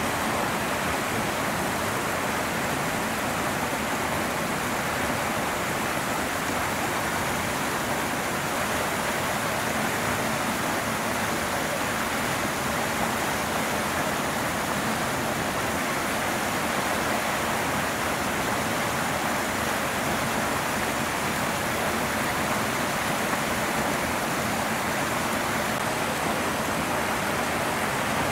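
Steady, unchanging rushing noise like static or running water, with no separate sounds standing out.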